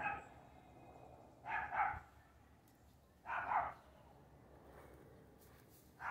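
A dog barking off and on, a single bark or a quick pair of barks every couple of seconds.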